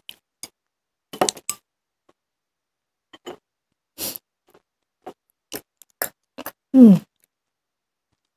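Scattered light clicks and taps of things being handled at a dining table, with a brief rustle about four seconds in. Near the end comes one short vocal sound that falls in pitch.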